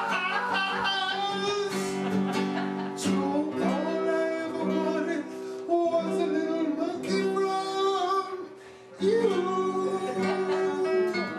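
A song: a man singing to guitar.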